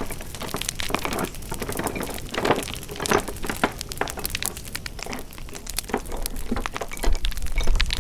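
Wood fire crackling, with irregular pops and snaps. A low rumble comes in near the end.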